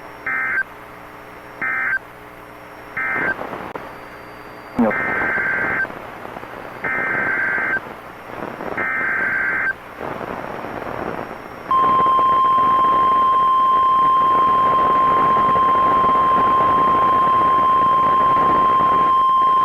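NOAA Weather Radio Emergency Alert System signals over a hiss of radio static. First come three short warbling data bursts, the end-of-message code closing the previous tornado warning. Then come three longer data bursts, the SAME header announcing the next tornado warning. About twelve seconds in, the steady single-pitch 1050 Hz warning alert tone starts.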